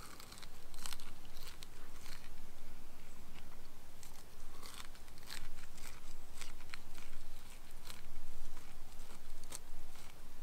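A person biting into and chewing a corn cob close to the microphone: irregular crisp crunches as the kernels are bitten off and chewed.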